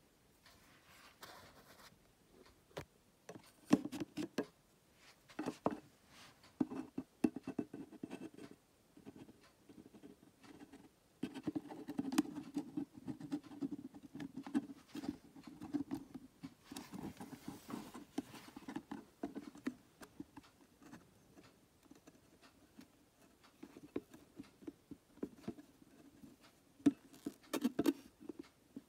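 Irregular scratching, tapping and rustling of a clear plastic tub being handled against a glass terrarium and its bedding as a hognose snake is let out. It comes in clusters, busiest about a third of the way in and again near the end.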